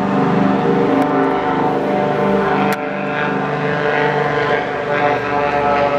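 Aircraft engines running, a loud steady drone made of many evenly spaced tones, with two short clicks about one and three seconds in.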